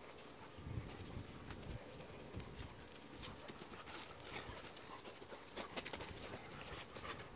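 Dogs running and scuffling in play, their paws thudding and pattering on artificial turf and wooden pallets, with scattered knocks and clicks. The low thumps are heaviest in the first two seconds or so.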